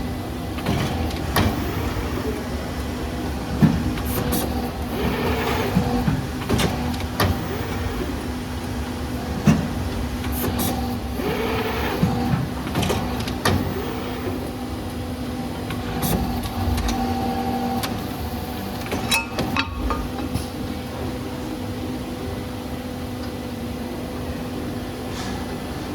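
CNC tube bending machine with a built-in cutter running: a steady motor hum with scattered sharp clicks and clunks as it works the tube.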